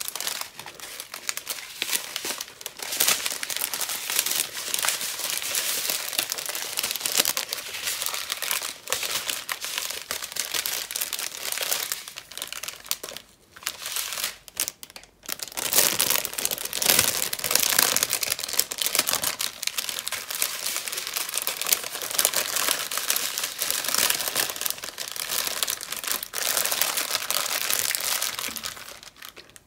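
Clear plastic bags crinkling and rustling as the small bags of diamond-painting drills are handled and packed away, with brief pauses about halfway through.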